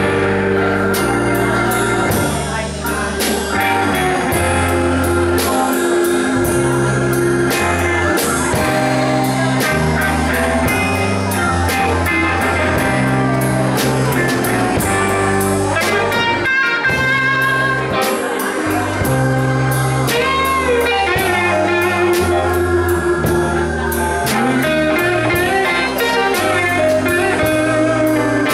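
Live blues-rock band playing a blues on electric guitars, bass, keyboard and drum kit, with a lead guitar line whose notes bend up and down in pitch.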